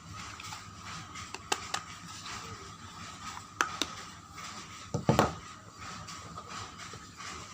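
Soap packaging being handled and unwrapped: a steady rustle of paper or cardboard with a few sharp clicks, and a heavier knock about five seconds in.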